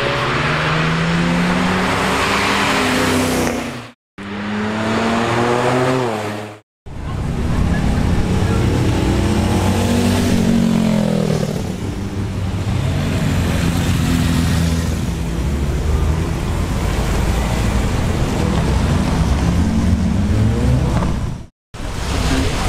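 Performance car engines revving and accelerating as several cars drive past, heard in short clips joined by abrupt cuts after about four seconds, after about seven seconds and near the end; the engine pitch climbs and falls as each car pulls away.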